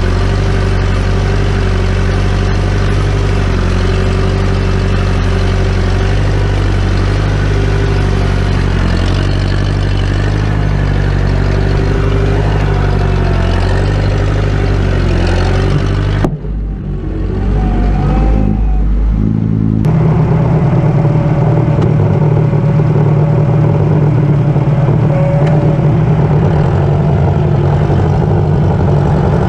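1956 Case 300 tractor engine running steadily, pulling a moldboard plow. A little over halfway through the sound turns abruptly muffled and low for a few seconds, then the engine comes back with a deeper note.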